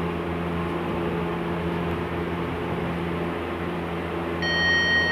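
A steady low electrical hum. About four seconds in, a high, steady electronic beep starts and lasts about a second.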